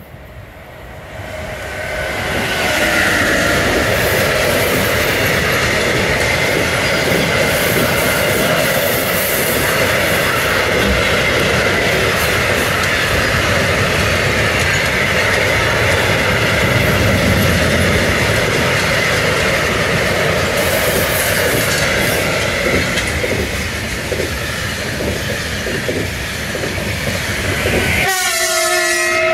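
Freight train of covered wagons rolling past close by, hauled and pushed by BB 27300 electric locomotives: a loud steady rumble and clatter of wheels on rail with a steady high squeal, building over the first couple of seconds. Near the end the pushing locomotive goes by with a short whining tone.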